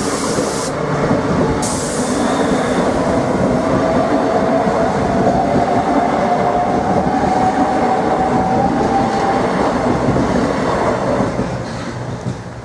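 Southeastern Class 395 high-speed electric multiple unit passing over a level crossing: a steady rumble of wheels on rails with a faint whine that rises slightly in pitch, fading away near the end.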